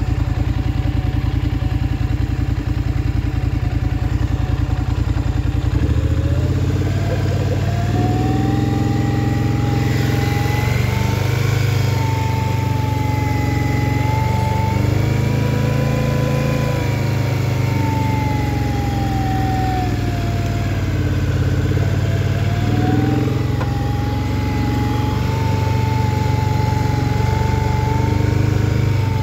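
Polaris Scrambler XP 1000 S ATV engine running. About six seconds in, a high whine joins the engine sound and slowly rises and falls in pitch: the weird noise the owner is recording.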